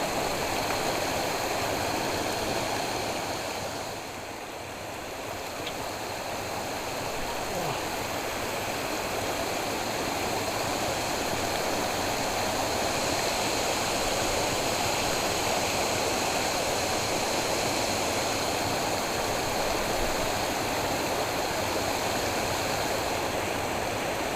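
Steady rushing of flowing water in a canal, briefly quieter about four seconds in.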